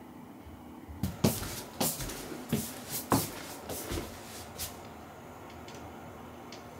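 A quick run of sharp knocks and clatter, about eight in three and a half seconds.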